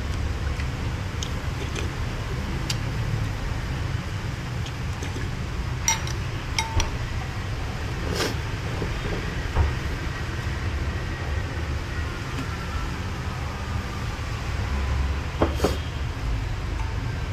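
A few light clinks of a metal spoon and chopsticks against a ceramic bowl of noodle soup while a man eats, over a steady low rumble.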